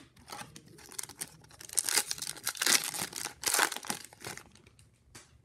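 Foil wrapper of an Upper Deck MVP hockey card pack being torn open and crinkled: a few seconds of rustling and tearing, loudest in the middle.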